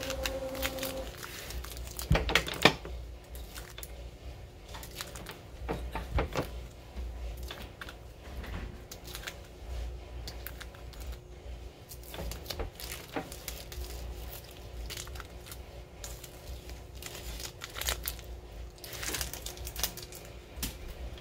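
Adhesive vinyl being weeded off its backing sheet: scrap vinyl crinkles and peels away in short crackles and ticks as a pointed weeding tool picks at it, the loudest two about two seconds in.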